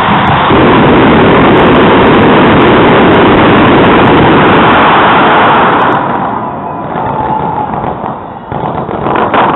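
Fireworks display at close range: a loud, dense, unbroken barrage of bursts for about six seconds, then it eases off and separate crackling pops return near the end.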